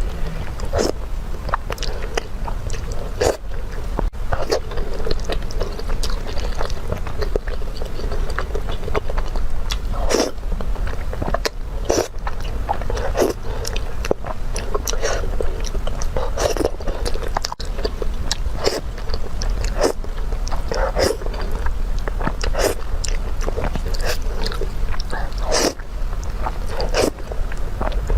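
Close-miked eating sounds: a person biting and chewing, with irregular sharp crunches and wet mouth clicks several times a second, over a steady low hum.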